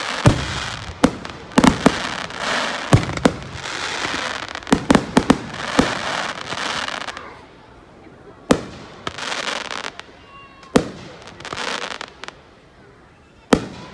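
Aerial fireworks bursting: a rapid run of sharp bangs with a noisy hiss between them for the first seven seconds or so, then a few single bangs spaced a couple of seconds apart.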